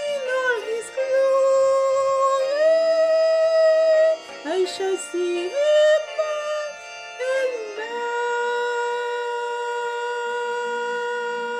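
Closing bars of a hymn: a solo voice sings a wordless, gliding melody with vibrato, then settles on one long held final note for about the last third.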